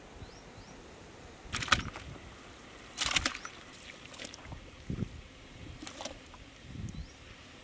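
Water sloshing and dripping in the big aluminium cooking pot as boiled goat intestines are pulled out of it by hand. Splashes come in a few short spells; the loudest are at about one and a half and three seconds in, with softer ones later.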